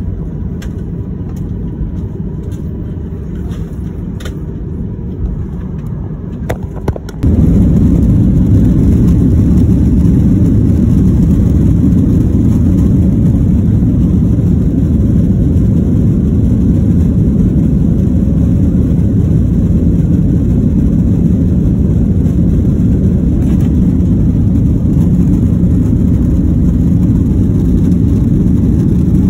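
Airliner cabin noise heard from a window seat while the jet is on the ground: a steady low rumble of engines and airflow. About seven seconds in, it jumps abruptly to a much louder, even rumble that holds steady.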